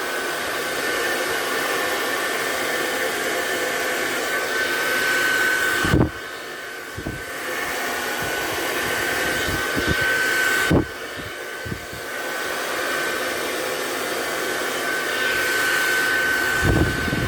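Hand-held hair dryer blowing steadily, a continuous rush of air with a thin high whine. Short knocks at about 6 and 11 seconds and again near the end, each followed by a brief drop in level.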